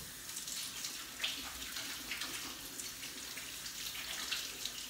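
Water running from a kitchen tap into the sink while hands are washed under it, a steady splashing hiss.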